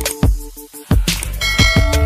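Background music with a steady drum beat, a low bass line and held synth notes.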